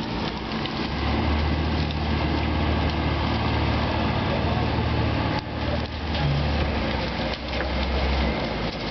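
An engine running steadily at a low note, starting about a second in and cutting off shortly before the end, with a few scattered knocks.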